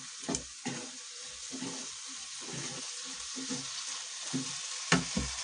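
Peas, capsicum and masala frying on a high gas flame in a nonstick kadhai, sizzling steadily while a wooden spatula stirs and scrapes through them in repeated strokes. Two sharp knocks near the end.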